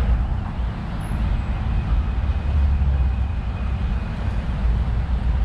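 City street traffic: a steady low rumble of motor vehicles, buses and trucks, with general street noise over it.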